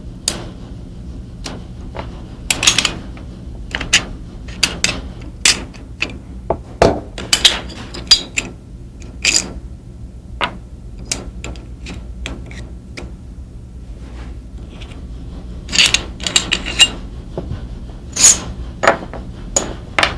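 Irregular sharp metallic clicks and clacks, some in quick clusters, as a Colt Series 80 Combat Commander 1911 pistol is disassembled: the slide being taken off the frame and its parts handled.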